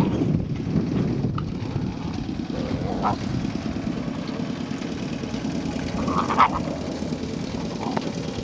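Fila Brasileiro puppies at play giving a few short yelps, the loudest about six seconds in, over a steady low rumble.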